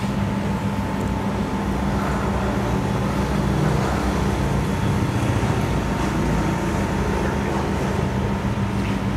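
Steady low mechanical hum at a constant pitch, from a running machine such as an engine or air-conditioning unit.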